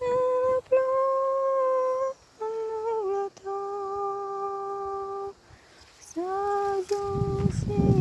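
A singing voice holding long, steady notes without words, about five notes with short pauses, the pitch stepping down partway through. Near the end wind buffets the microphone with a low rumble under the singing.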